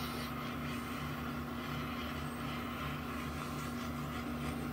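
Small handheld butane torch hissing steadily over a low hum as it is passed over freshly poured epoxy resin to bring air bubbles up and pop them.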